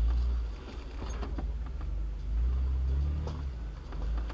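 Off-road vehicle's engine running at low revs while it crawls over a rocky trail, with a few short knocks and creaks. The engine note swells for a moment a little past the middle.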